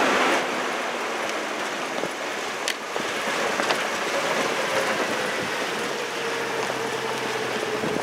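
Toyota truck driving over a rough dirt track, heard from inside the cab: a steady rush of tyres on dirt and gravel over the engine's low hum, with a few sharp knocks from bumps or stones.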